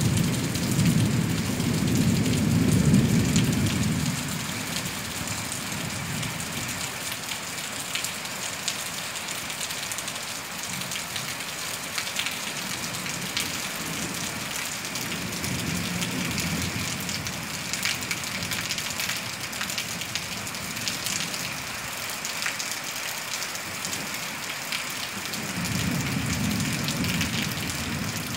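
Steady rain falling, with a low rumble lasting a few seconds at the start and another near the end.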